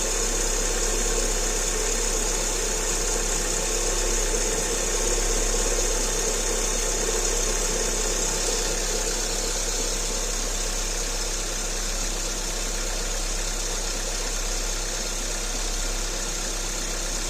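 Lada Largus 1.6-litre 16-valve VAZ-21129 petrol engine idling steadily.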